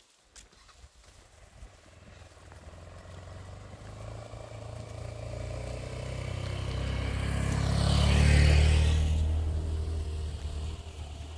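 Motorcycle engine approaching along the lane, growing steadily louder, passing close by about eight seconds in, then fading away.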